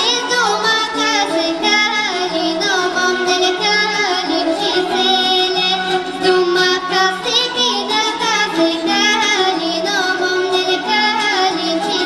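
Bulgarian folk song from a backing track, with an ornamented, wavering melody over steady held accompaniment notes, and a girl singing solo into a stage microphone.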